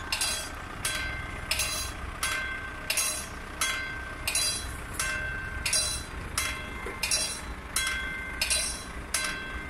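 Railway level crossing warning bell ringing in an even rhythm, about three strikes every two seconds, each strike leaving a ringing tone, over a steady low rumble.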